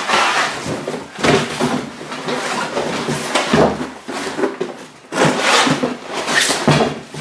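Cardboard box being handled: flaps folding and rustling, and the heavy box scraping and knocking against a wooden tabletop as it is gripped and turned, in a series of irregular bursts.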